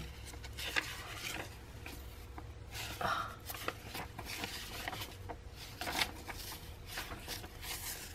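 Loose sheets of old book paper rustling and sliding against one another as they are handled and swapped, in short quiet bursts every second or so.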